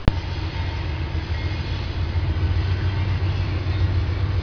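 Norfolk Southern diesel-electric locomotives hauling a freight train: a steady low engine drone with rail and wheel noise, no chuffing. A sharp click comes right at the start.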